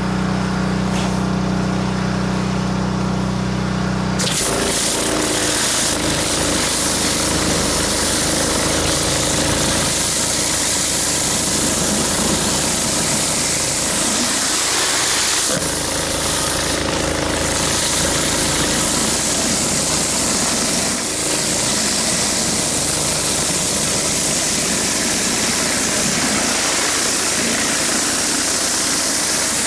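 Gas pressure washer engine running steadily; about four seconds in, the surface cleaner's spinning jets start spraying, adding a loud, steady hiss of high-pressure water on concrete over the engine.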